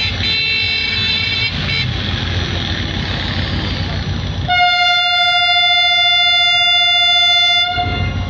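Pakistan Railways HGMU-30 diesel-electric locomotive running with a steady low engine rumble at departure, then sounding its horn in one long single-pitched blast of about three seconds from just past halfway. A brief, higher-pitched toot sounds near the start.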